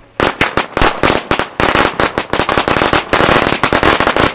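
Firecrackers going off in a rapid run of sharp cracks. A few separate bangs come first, then from about a second and a half in they fire almost continuously.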